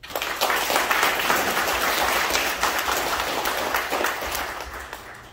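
Audience applauding, a dense crowd of hand claps that starts abruptly and fades out in the last second or so.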